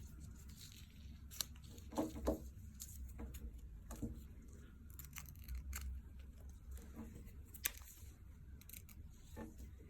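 Scattered small clicks and rustling of a watch band being handled and fitted onto an Apple Watch, with a few sharper ticks along the way.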